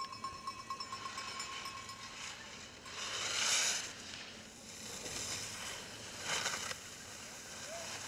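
Alpine skis scraping and carving on firm snow through giant slalom turns: two loud hissing scrapes, the longer about three seconds in and a shorter one about six seconds in, with a faint steady hiss between them.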